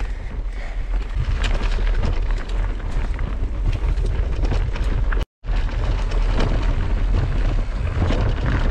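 Wind buffeting on a camera mounted to a mountain bike riding down a rocky dirt singletrack. The low rumble runs under many small clicks and rattles from the bike and the tyres on loose stones. The sound cuts out for a split second about five seconds in.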